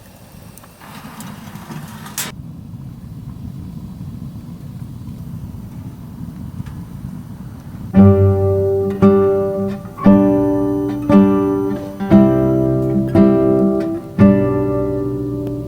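A low, even rumble, then background music: acoustic guitar strumming chords, about one strum a second, from about eight seconds in.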